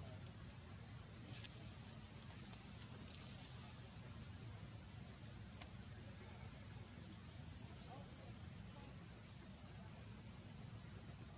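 Faint outdoor ambience: a short, high, slightly falling chirp repeats about every second and a half over a low, steady rumble.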